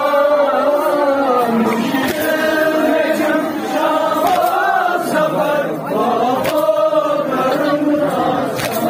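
Male reciters chanting a noha, a Shia lament, through a horn loudspeaker, with the mourners' voices joining the melody. A few sharp slaps of chest-beating cut through.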